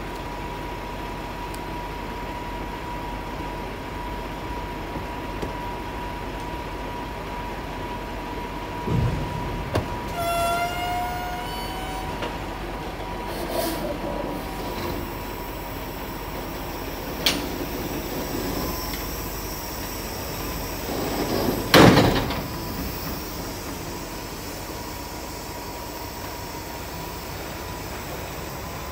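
Semi-truck tractor idling steadily while it is unhooked from its trailer, with a thump about nine seconds in and a loud hiss lasting about a second some twenty-two seconds in, before the tractor pulls away from under the trailer.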